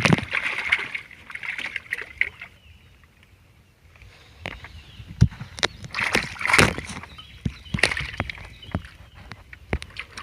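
Water sloshing and splashing, mixed with scattered knocks and clicks, as fish are handled on a boat, with a quieter stretch about three seconds in.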